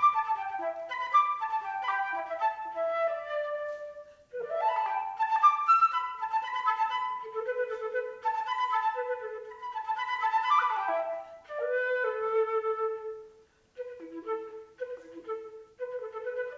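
Solo flute playing quick runs of notes, a descending run in the first four seconds, then rising flourishes and fast figures, with brief pauses about four and thirteen and a half seconds in.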